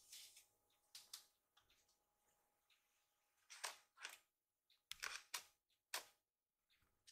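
Near silence broken by about eight faint, brief scratches and scuffs, clustered near the start, in the middle and near the end, from a small kitten's paws and claws on a wooden floor and door edge.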